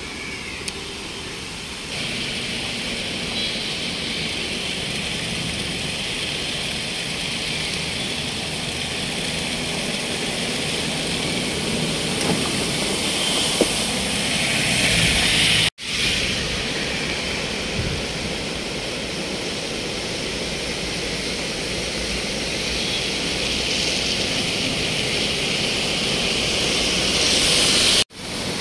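Steady rushing noise of floodwater running over a flooded highway, mixed with vehicles driving through the water. It swells twice and breaks off abruptly at two cuts.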